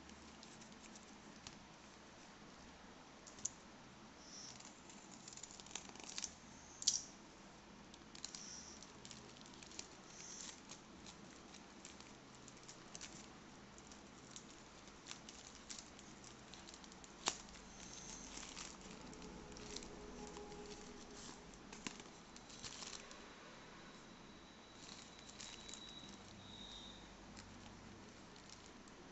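Faint crinkling and rustling of a plastic courier bag and wrapping being handled and opened by hand, with scattered sharp clicks and crackles.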